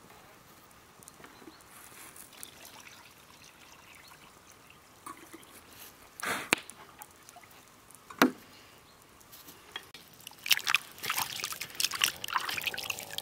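Water splashing and trickling in the last few seconds, after two sharp knocks about six and eight seconds in.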